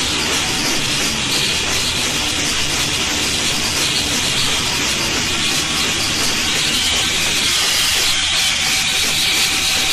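A loud, steady hissing, rushing noise that does not change.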